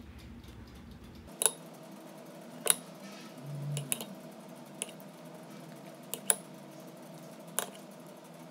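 Metal spoon clinking against a stainless steel pot and dye container: several light, sharp clinks at uneven intervals while coffee-and-tea dye is spooned over fabric.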